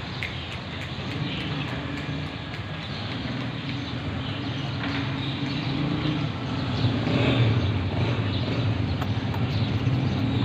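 A motor vehicle's engine running steadily, growing louder about seven seconds in, with faint ticks of cats crunching dry kibble.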